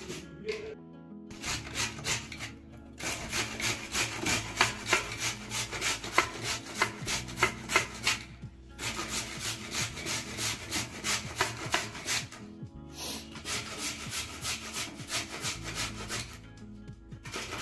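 Carrot being grated by hand on a stainless-steel box grater: quick rasping strokes, about two or three a second, with brief pauses about a second in, about eight seconds in and near the end.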